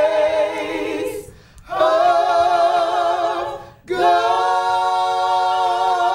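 A small mixed gospel choir of seven voices singing unaccompanied in harmony, the closing words 'grace of God': two short phrases with brief breaths between, then a long held final chord with vibrato from about four seconds in.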